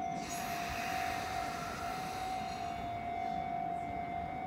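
Sotetsu 10000 series electric train standing at the platform with its doors open: a burst of air hiss that begins just after the start and fades away over about three seconds, over a steady high tone.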